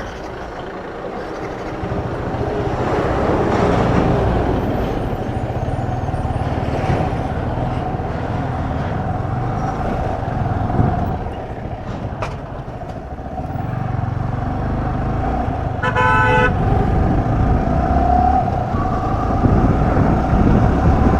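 Motorcycle engine running on the move, with wind noise. A vehicle horn honks briefly about sixteen seconds in.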